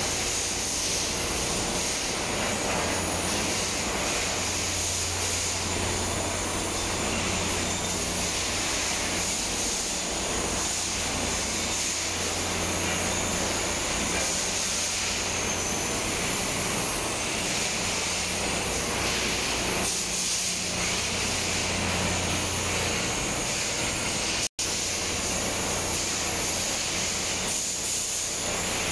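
Steady machinery din of a timber cross-cutting and stacking line: motors and conveyors humming under a constant high hiss. The sound cuts out for an instant about three-quarters of the way through.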